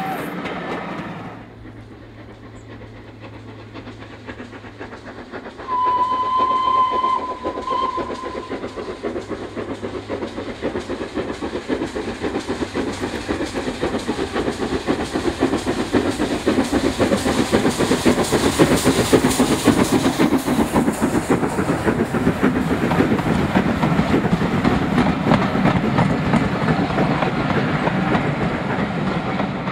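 Steam locomotive sounding one whistle of about two seconds as it approaches, then working with a fast, even exhaust beat that grows louder as it draws near and passes. Its coaches rattle by behind it near the end.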